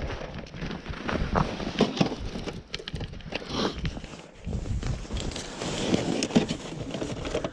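Rustling and irregular light knocks from gloved hands handling an ice-fishing flasher's transducer cable and its plastic case.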